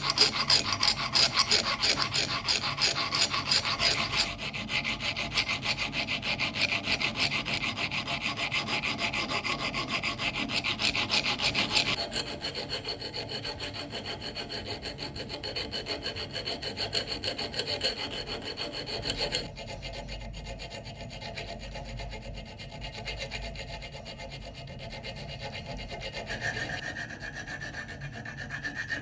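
Rapid back-and-forth hand strokes of a file or sandpaper rubbing against the knife, in several stretches that change in pitch and loudness. It gets quieter after about twenty seconds.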